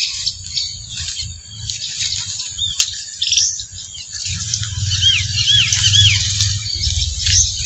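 Birds chirping: scattered short calls, with a run of three or four repeated arched chirps in the middle, over a low rumble on the microphone.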